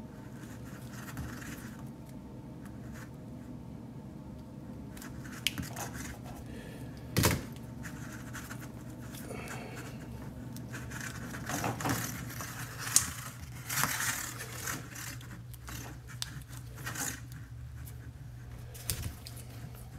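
A blade scraping and slitting rubbery heat-shrink tubing on an antenna duplexer, with crinkling and handling rustle as the tubing is peeled back, and a sharp click about seven seconds in. A steady low hum runs underneath.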